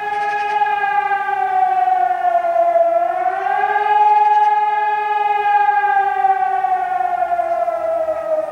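Civil defence siren sounding in a routine test with one loud wailing tone. Its pitch dips about three seconds in, rises again, then falls slowly through the second half.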